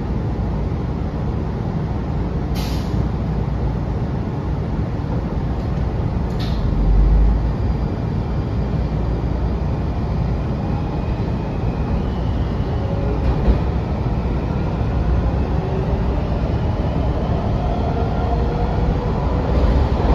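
Inside a Washington Metro 6000-series railcar picking up speed: a steady rumble of wheels and running gear on the track, with a faint rising whine from the propulsion. There are two brief sharp clicks in the first seven seconds, and the noise grows louder and harsher near the end as the train enters a tunnel.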